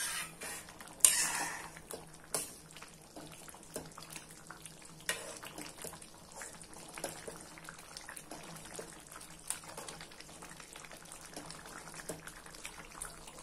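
A spatula stirring and scraping thick pav bhaji in a steel pan, with short knocks against the pan. The loudest scrape is about a second in, with smaller ones scattered after.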